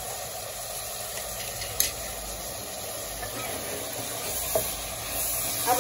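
Onions and meat sizzling in oil in a pressure cooker pot while a spoon stirs in the ground spices, a steady frying hiss. A sharp click of the spoon against the pot about two seconds in, and a lighter one near the end.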